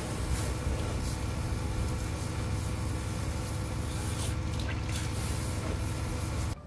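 Vehicle engine running steadily, a low rumble with a steady hum and hiss over it, cut off abruptly near the end.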